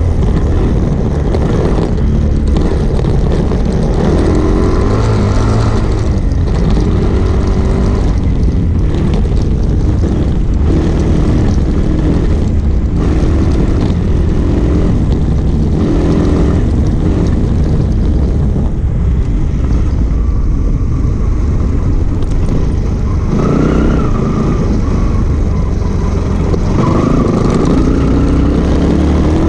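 Single-cylinder motorcycle engine heard from on board while riding a rough dirt trail, its pitch rising and falling with the throttle, under steady wind rush and short knocks from the bumpy ground.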